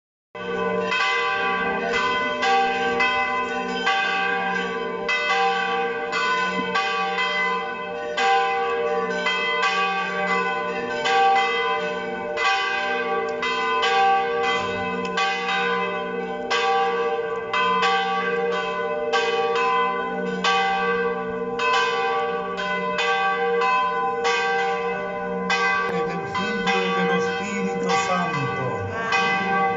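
Church bells pealing, several bells struck over and over in a quick, uneven pattern, their tones ringing on and overlapping.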